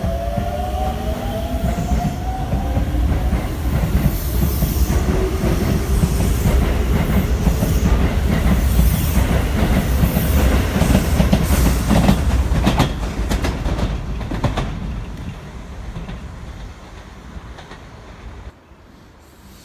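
Electric commuter train passing on the rails. A rising motor whine is heard in the first few seconds, then wheels clack over rail joints with a loud rumble, before the sound fades away near the end.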